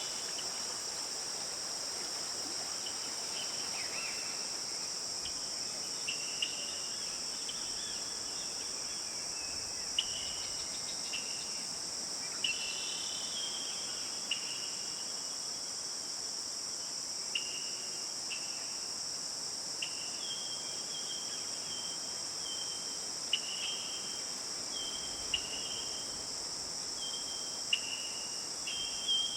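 Forest ambience: a steady high-pitched chorus of crickets or similar insects, with short chirps every second or two, more regular in the second half.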